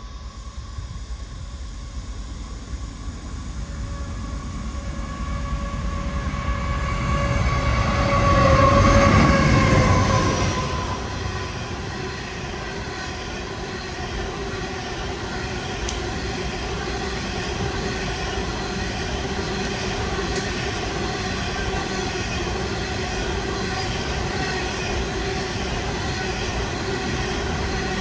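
Diesel-hauled coal train passing close. The locomotives build up and go by about nine seconds in, their engine tones dropping in pitch as they pass. A long rake of coal hopper wagons then rolls past with a steady rolling rumble and a few steady high tones from the wheels.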